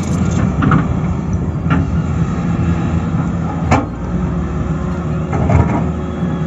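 Heavy earth-moving machine's diesel engine running steadily under load, with scattered knocks and one sharp crack or clank about three and a half seconds in.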